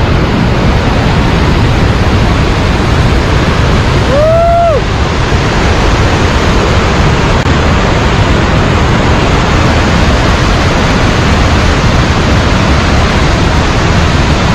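Waterfall and river rapids rushing loudly and steadily. About four seconds in, one short call rises and then falls in pitch over the water noise.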